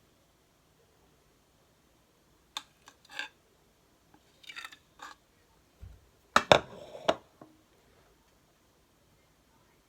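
Kitchen utensils clicking, scraping and knocking against a dish while cream is spooned and spread over a biscuit layer. A few scattered clicks and scrapes come first, and the loudest cluster of sharp knocks, ringing briefly, comes about six and a half seconds in.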